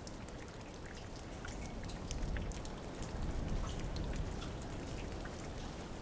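Water dripping from melting icicles: many small, scattered drops pattering.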